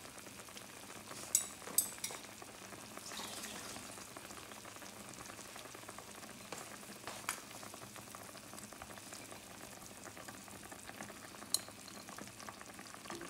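Pork adobo simmering in its soy-sauce braising liquid in a skillet, a steady bubbling crackle. A few sharp clicks stand out, about a second and a half in, at two seconds, around seven seconds and near the end.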